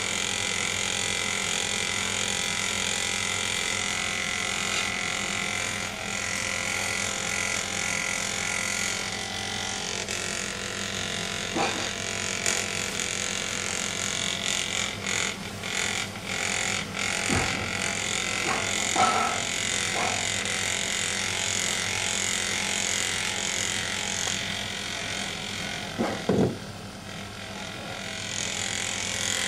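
Small electric motor of a handheld Magnessage magnetic massager running with a steady hum, with a few brief knocks partway through and a louder pair near the end.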